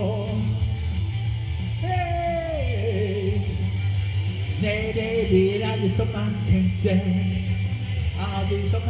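Rock song played live: a man singing into a microphone while playing electric guitar, over a steady low bass and a steady ticking beat.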